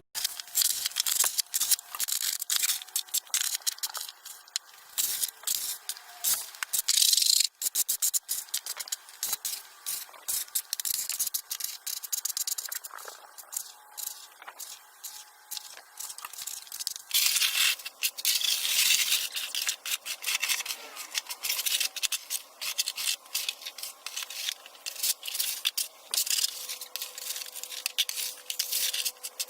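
Snow shovel scraping and scooping snow on a driveway, in repeated irregular strokes.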